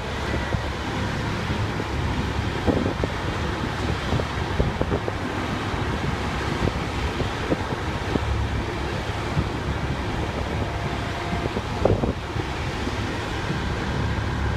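Wind buffeting the microphone over a steady low rumble, with a few short knocks, the loudest about twelve seconds in.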